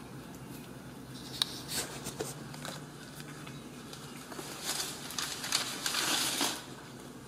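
Ragdoll kittens nursing on their mother, giving soft clicks and rustling as they suckle and jostle against her fur, in two busier spells about a second in and again around five seconds in.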